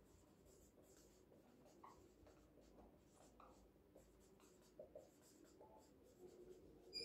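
Faint squeaks and scratches of a marker writing on a whiteboard, in many short strokes.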